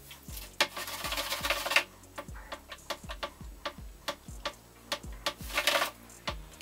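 A ticking clock sound effect: regular ticks with a low thud, about two a second, marking time passing while the plate develops. Two brief swishing bursts come over it, one about half a second in and a shorter one near the end.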